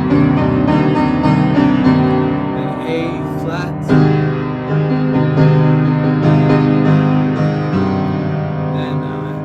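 Piano playing slow sustained chords, a new chord struck about four seconds in and another near eight seconds, each left to ring.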